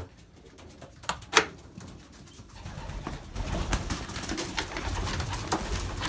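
Racing pigeons cooing in a small wooden loft, with two sharp knocks about a second and a half in.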